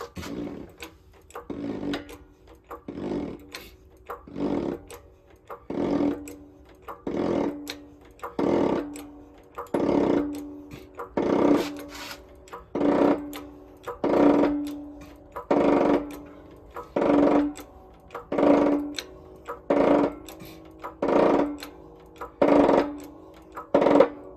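Repeated metal-on-metal strikes, about one every second and a half, each ringing briefly, as the front bearing is driven onto a John Deere 4230 Syncro-Range transmission top shaft. The strikes get louder over the first few seconds, then keep an even pace.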